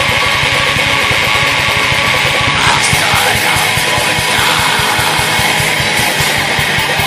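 Raw black metal song: distorted electric guitars over fast, continuous drumming, loud and unbroken.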